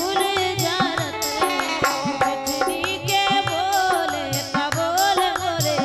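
A woman singing a traditional Bundelkhandi gaari folk song to harmonium accompaniment, with a hand drum keeping a steady beat whose bass strokes bend in pitch.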